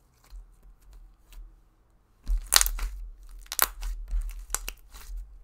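Thick white slime being pressed, stretched and pulled apart by hand, giving sticky clicks and pops. Faint ticks at first, then a dense run of sharp pops from about two seconds in, with soft thuds of the slime against the table.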